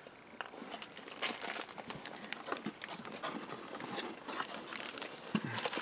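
Crisp, thin ginger snaps being chewed: faint, irregular crunching clicks.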